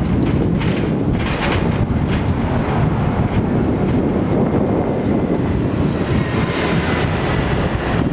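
Hong Kong double-decker electric tram running along its tracks, heard from the upper deck as a steady loud rumble mixed with wind buffeting the microphone. A few light rattles come in the first couple of seconds, and a faint high whine enters about halfway through.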